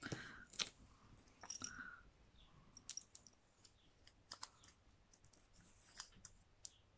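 Faint, scattered small clicks and light rustles of paper and card being handled while 3D foam adhesive pads are stuck onto a card label.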